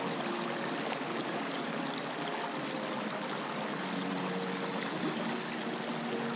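Shallow, rocky mountain stream babbling steadily over stones, heard close to the water's surface.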